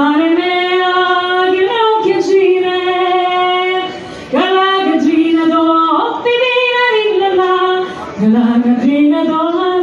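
A high, woman's voice singing a slow song in long held notes, with a breath between phrases about four and eight seconds in.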